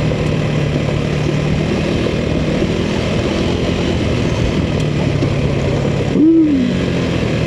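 Motorcycle engine running at low, steady revs on a downhill stretch of dirt trail, with tyre and wind noise. About six seconds in, the pitch rises briefly and falls back.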